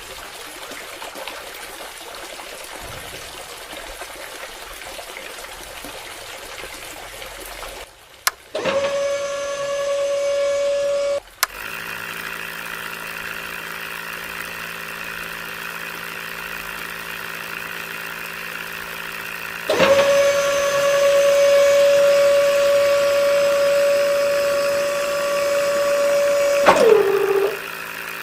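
Small DC motor of a homemade mini borewell drilling rig whining at a steady pitch, switched on briefly about 9 seconds in and again for about seven seconds from 20 seconds in, winding down with a falling pitch near the end. A lower steady hum runs between the two whines, and a steady hiss fills the first part.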